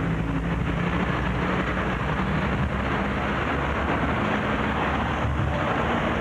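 Steady rumble of street traffic, with a low engine-like hum through the first half that then fades into the general noise.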